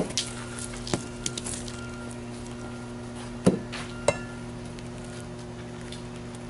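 A few sharp knocks and clacks, a youth baseball bat hitting pitched balls and balls striking the cage netting, with the loudest pair about three and a half seconds in. A steady low hum runs underneath.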